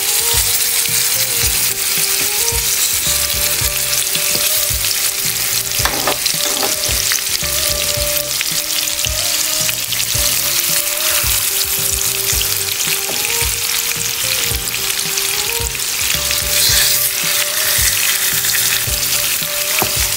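Salmon pieces sizzling steadily in hot oil in a frying pan as they are laid in one by one to fry.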